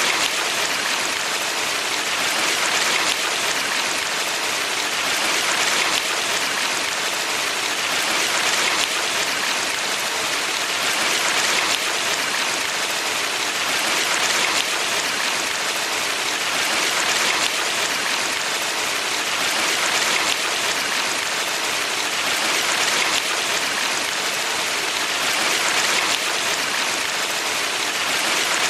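Valley stream flowing: a steady rush of water that swells gently every few seconds.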